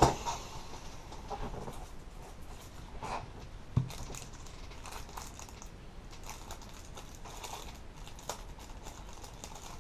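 Small scattered clicks and crinkling from small parts or packaging being handled, with one sharper knock about four seconds in.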